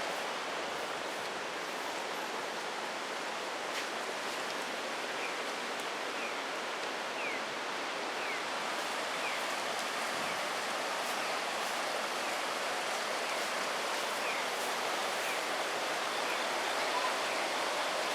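Floodwater of the swollen Kamo River rushing past in a steady, unbroken roar of noise. Through the middle, faint short high chirps repeat about once a second.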